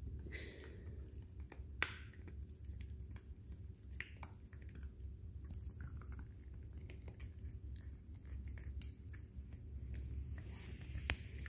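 A small puppy chewing and gnawing on a hand-held chew: soft, irregular gnawing clicks, with a sharper click about two seconds in and the loudest near the end.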